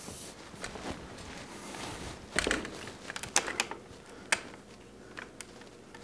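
Handling noise of a camera being carried and repositioned: rubbing and low rumble, with sharp clicks and small knocks. The clicks come in a cluster about two and a half seconds in, more about a second later, then a few single ticks near the end.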